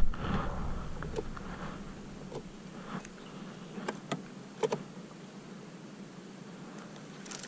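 Electric trolling motor running with a steady low hum. A few faint clicks and taps come in the first half.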